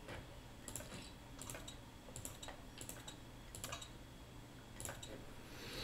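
Faint, irregular clicking of computer controls, about eight clicks spaced unevenly, as chips are clicked onto a bet. A faint low hum runs underneath.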